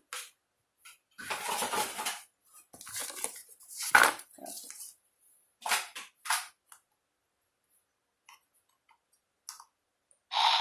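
Hard plastic toy figure and its parts being handled, with scattered clacks and rustles. These come in short bursts, with a sharper click about four seconds in, as the detachable tail is fitted on.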